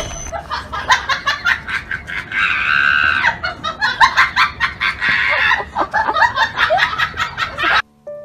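A person laughing in quick, cackling bursts with high squeals, loud and dense, cut off abruptly near the end.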